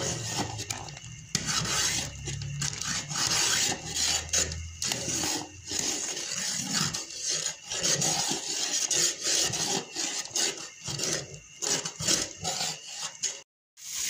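Metal spoon stirring a pot of rice cooking in milk, scraping around the bottom of the pot in repeated, irregular strokes.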